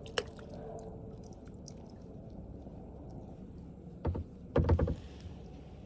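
A paddle knocking against the hull of a small paddled boat: one sharp click right at the start, then two dull thumps about four seconds in, the second longer and louder.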